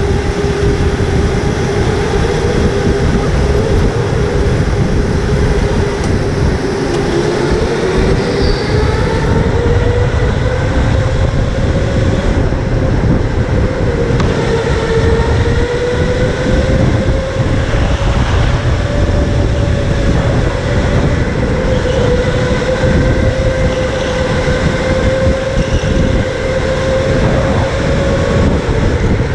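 Electric go-kart motor whining at speed. Its pitch dips as the kart slows for a corner about seven seconds in, then climbs and wavers as it accelerates through the bends. A heavy low rumble of road and wind noise on the helmet-mounted camera runs underneath.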